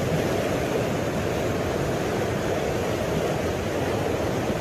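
A flooded river of muddy water rushing through its channel in a steady, unbroken torrent.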